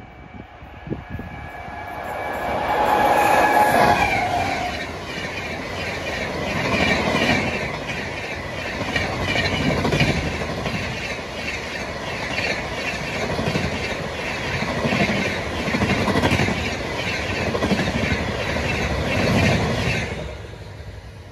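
An Indian Railways WAP7 electric locomotive's horn sounds for about four seconds as it comes up close. Then the Tamil Nadu Express coaches rush past at speed, with an even clickety-clack of wheels over rail joints and low thumps that stop suddenly near the end as the train clears.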